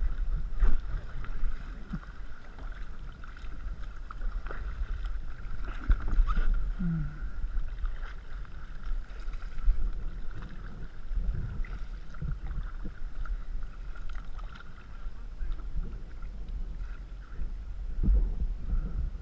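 Canoe being paddled, with irregular knocks of the paddle and hull every few seconds over a low wind rumble on the microphone. A faint steady high tone runs underneath.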